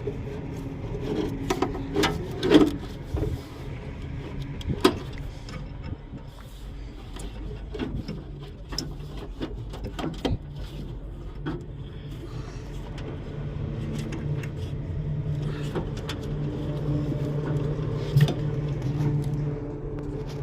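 A steady low mechanical hum, a little louder in the second half, under scattered clicks, knocks and rubbing from hand work on a truck's wiring harness and fittings.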